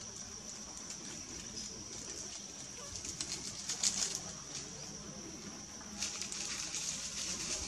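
Dry twigs and leaves rustling and crackling as a baby macaque climbs and hangs in a bush, in two spells, about three seconds in and again about six seconds in. A steady high-pitched whine runs underneath.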